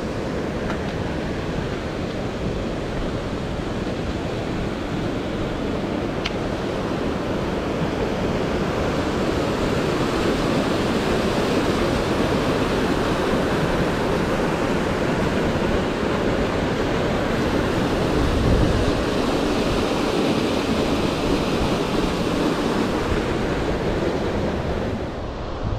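Creek water rushing in a steady noise that swells slightly partway through, with a brief low buffet on the microphone about two-thirds of the way in.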